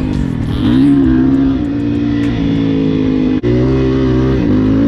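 Dirt bike engine under way, heard from on the bike itself. The note dips and picks up again twice, near the start and near the end, with a brief dropout in the sound about three and a half seconds in.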